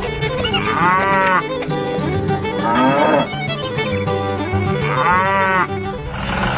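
Background music with two long moo-like calls, each rising and then falling in pitch, about a second in and again about five seconds in, and a weaker gliding call between them.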